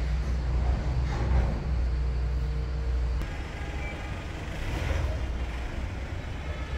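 A vehicle engine running with a steady low rumble. A click about three seconds in is followed by a slightly lower, steadier hum.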